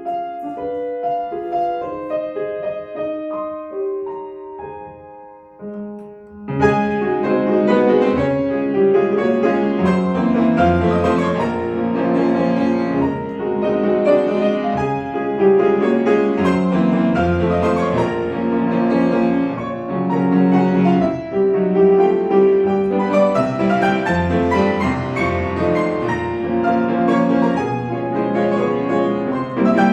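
Solo classical piano: a few quiet, slow, held notes, then about six and a half seconds in a sudden loud burst of fast, dense passagework that carries on.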